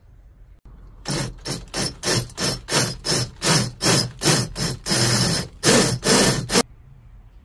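Hand saw cutting through wood in about fifteen quick back-and-forth strokes. The last few strokes are longer, then the sawing stops suddenly.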